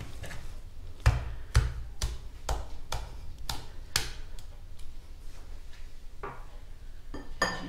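Wire whisk knocking against the side of a mixing bowl, a sharp clack about twice a second, while stirring a thick, heavy cake batter. The knocks thin out to a few fainter ones in the second half.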